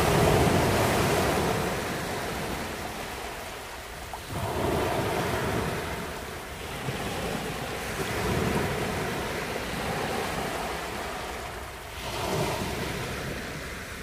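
Small sea waves breaking and washing up a sandy beach, a new swell of surf about every four seconds, the loudest right at the start.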